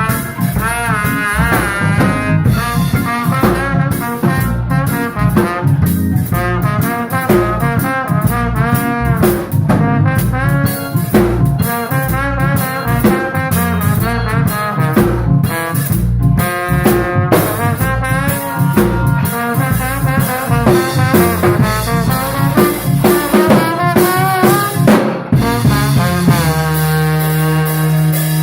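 A live instrumental band with horns and a drum kit playing a jazzy tune, the horn lines bending and running over steady drums, ending on a long held chord near the end.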